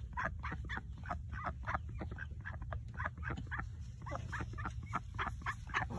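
Ducks quacking in a run of short calls, about three or four a second, with a steady low rumble underneath.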